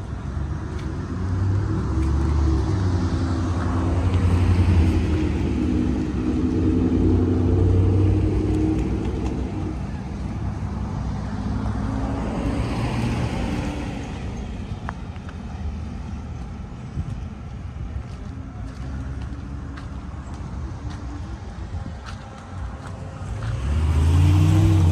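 Road traffic: cars passing one after another, with engine hum and tyre noise swelling and fading. Another vehicle builds up near the end.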